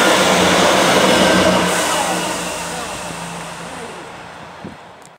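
Class 158 Express Sprinter diesel multiple unit passing, its diesel engines giving a steady low drone over the running noise. The sound fades away steadily from about a second and a half in as the train draws off.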